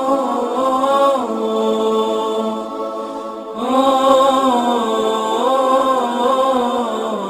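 A single voice chanting an Arabic supplication in long, drawn-out melodic phrases, with a short pause for breath about three seconds in.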